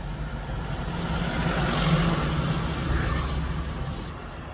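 Road traffic heard from inside a car: a steady low rumble, with a vehicle passing that swells to its loudest about two seconds in and then fades.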